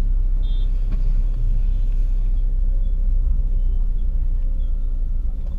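Low, steady rumble heard inside a car's cabin: engine and road noise while the car crawls in slow traffic.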